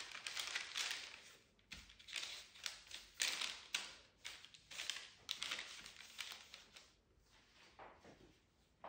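Baking parchment on a metal tray rustling and crinkling under hands as a baguette dough log is placed and straightened, with a few light taps, stopping about seven seconds in; a single click near the end.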